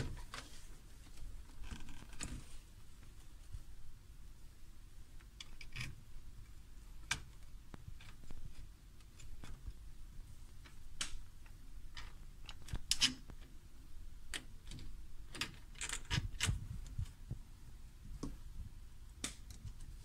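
Scattered light clicks and knocks of a plastic wall-switch module being handled and pushed into a wall box, with a quick run of clicks about two thirds of the way through.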